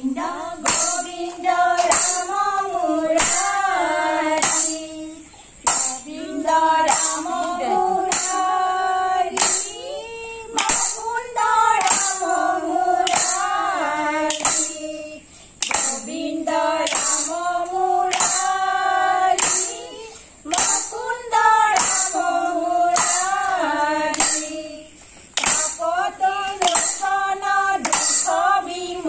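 A group of women singing Assamese devotional nam together in phrases of a few seconds with short breaks. A steady struck beat, about three strokes every two seconds, keeps time with a bright ringing edge.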